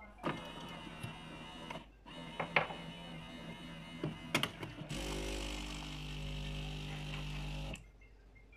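Siemens EQ.500 integral automatic coffee machine working through a drink: two spells of steady mechanical running with a few sharp clicks, then a louder steady hum from about five seconds in that cuts off sharply near the end.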